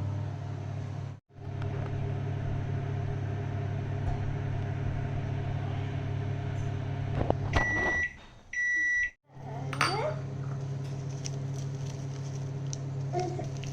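Microwave oven running with a steady hum while heating milk for coffee. About seven and a half seconds in it stops and gives two beeps, then the hum starts again.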